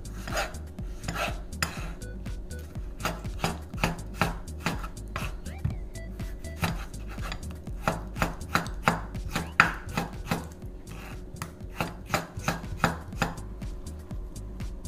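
Kitchen knife slicing a tomato on a wooden cutting board: an uneven run of sharp knocks, a few a second, as the blade goes through the tomato and strikes the board.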